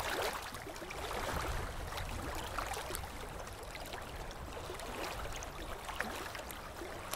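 Steady, gentle wash of moving water.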